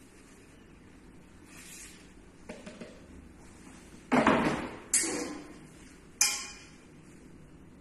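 Stainless steel table frame and marble tabletop being handled and set down: a few light knocks, then three sharp clanks with short ringing about a second apart.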